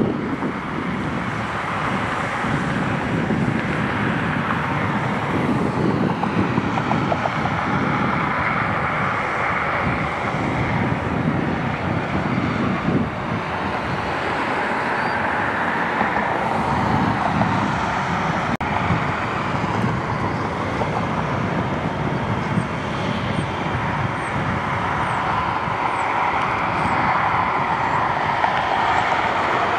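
Jet airliner engines running, a steady loud rush with a whine that slowly shifts in pitch, with wind gusting on the microphone.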